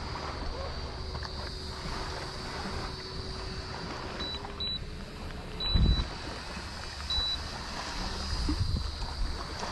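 Wind on the microphone and small waves lapping against a skiff's hull, steady throughout, with a single dull thump about six seconds in.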